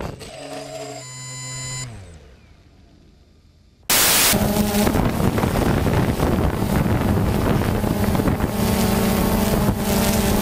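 Small multirotor drone's propellers: a whine falls away and dies, and after a short lull a loud, steady propeller buzz starts abruptly about four seconds in.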